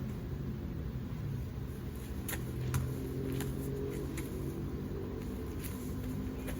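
Steady low rumble of a running engine, with a few short sharp clicks scattered through it.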